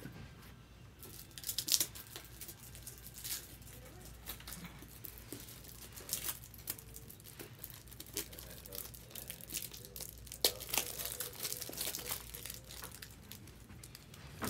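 Trading-card pack wrappers crinkling and tearing as packs are ripped open, in irregular bursts, loudest about a second and a half in and again around ten seconds in.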